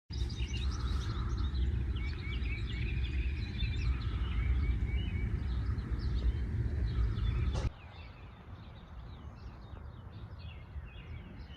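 Many small birds chirping and singing over a steady low rumble. About two-thirds of the way through the rumble drops away suddenly and the birdsong carries on, softer.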